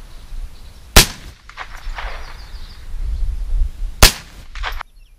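Ruger 10/22 semi-automatic .22 rifle firing .22 Long Rifle hollow points offhand: two sharp shots about three seconds apart.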